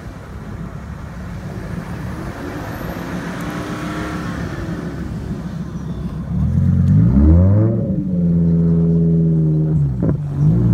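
Car engine running low at first, then revving hard from about six seconds in: the revs climb steeply and hold high, drop briefly with a short click near the end, and climb again.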